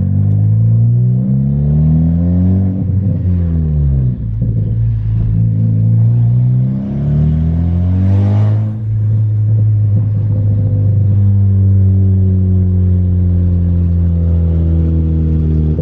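Turbocharged Ford Focus ST with a Garrett GTX2867R big turbo on a 17 psi base-map tune, accelerating hard: engine pitch climbs, drops at a gear change about three seconds in, and climbs again. About eight seconds in, a brief hiss comes as the throttle lifts, then the engine settles to a steady cruise.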